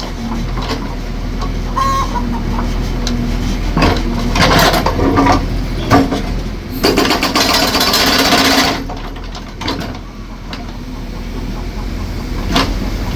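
Concrete breaker hammering at concrete in bouts, heaviest about seven to nine seconds in.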